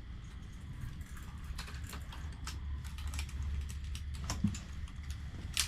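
Scattered light, irregular clicks and taps of fishing tackle being handled while a hooked fish is reeled in, over a low steady hum.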